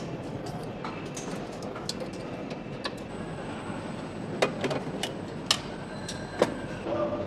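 Engine assembly-line machinery running steadily, with sharp metallic clicks and clanks, three loud ones in the second half, and a thin high whine that starts about three seconds in and stops near the end.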